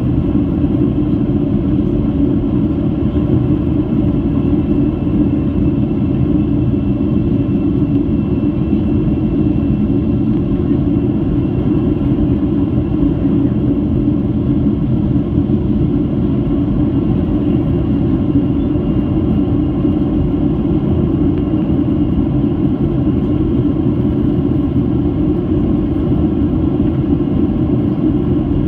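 Steady cabin rumble of a Boeing 737-800 under way, the CFM56 engines and airflow making an even low roar that does not change.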